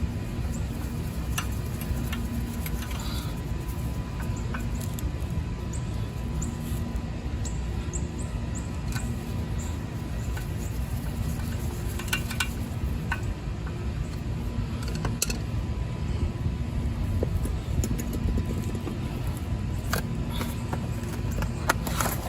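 Scattered light metallic clicks and clinks of hand tools and brake parts being handled over a steady low background rumble.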